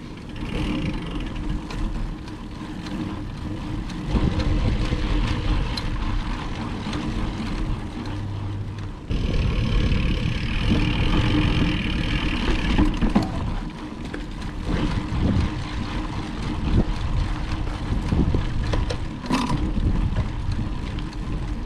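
Mountain bike riding along a dirt trail: a steady rumble of tyres and wind buffeting the microphone, with scattered knocks and rattles from the bike. It grows louder about nine seconds in.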